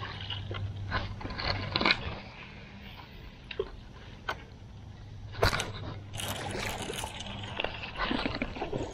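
Low steady hum of a small boat's electric trolling motor, with water sloshing and a few knocks and clicks from gear in the jon boat.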